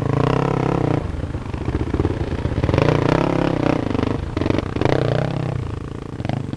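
Dirt bike engine revving hard, rising and falling in pitch as the bike climbs a steep, sandy hill under load.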